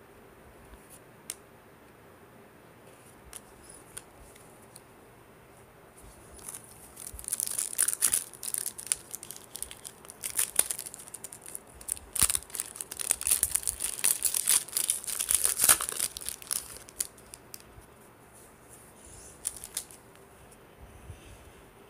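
Topps Series 2 baseball card pack wrapper being torn open and crinkled by hand: a run of crackling crinkles that starts about six seconds in and stops about seventeen seconds in.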